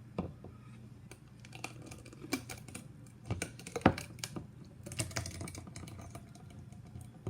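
Irregular light clicks, taps and scrapes of a spoon and kitchen utensils against a cup and blender jar as a blended ice-cream treat is dished out, the loudest knock about four seconds in, over a faint low hum.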